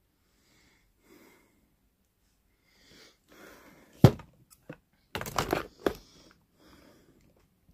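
Camera being handled and moved: faint rustling, one sharp knock about four seconds in, then a short cluster of scrapes and clicks a second later.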